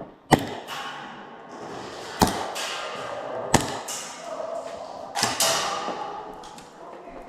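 Airsoft guns firing single shots in a large indoor arena: five sharp cracks, each with an echoing tail, the last two close together.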